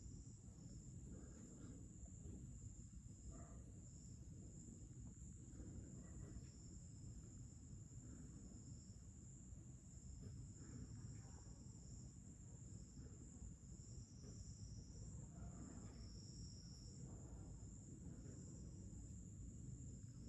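Faint night ambience: a steady high-pitched insect trill, with a second, slightly lower trill pulsing on and off, over a low background hum.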